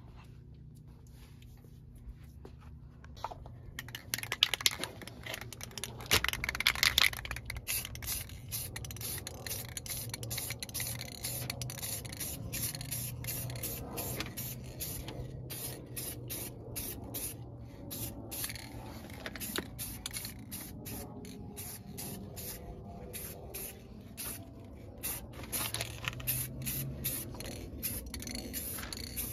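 Aerosol spray can of gloss black paint spraying a brake caliper in many short bursts, the hiss starting and stopping over and over from about four seconds in.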